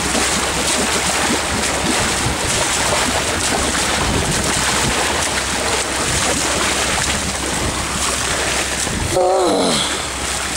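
Steady rush of wind on the microphone and sea water splashing, over the low running of the escort boat's engine. Near the end, a short call falls in pitch.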